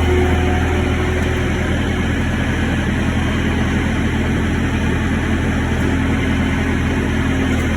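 An engine running steadily at idle, with an even low hum.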